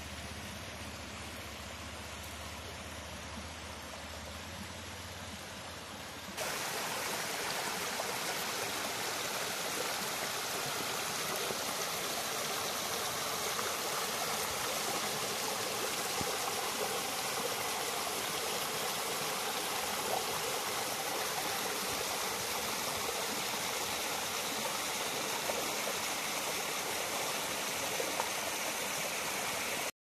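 Shallow rocky stream running over stones and down a rock face: a steady rush of flowing water. For the first six seconds or so there is only a quieter hiss with a low hum, and then the water comes in suddenly, louder.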